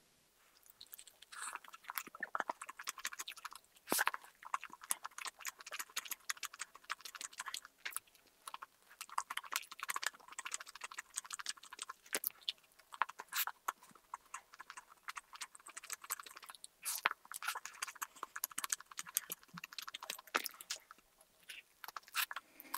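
Biting and chewing a toasted sandwich with crisp lettuce: an irregular run of crunchy chewing clicks, with a few sharper bites among them.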